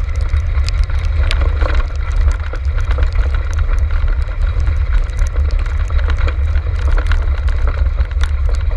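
Continuous low rumble and buffeting from a camera mounted on a moving six-dog racing cart, with frequent sharp rattling clicks from the rig jolting over the ground.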